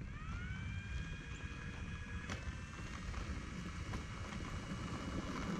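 Brushless electric motor and propeller of an E-flite Air Tractor 1.5m RC plane whining up in pitch as throttle is added, then holding a steady whine as the plane taxis along the runway after landing. Wind rumbles on the microphone, and there is one sharp click near the middle.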